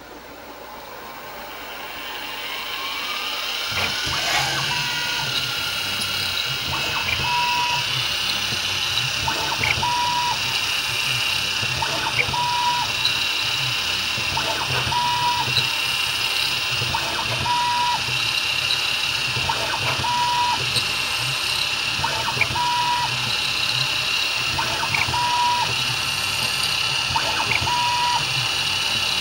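CNC milling machine spindle spinning up with a rising whine over the first few seconds, then running steadily as an end mill cuts a plastic retainer cap. A short steady tone and a tick recur about every two and a half seconds.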